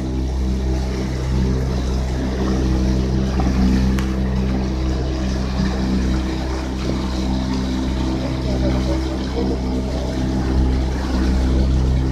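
Speedboat engine running steadily underway, a constant low drone.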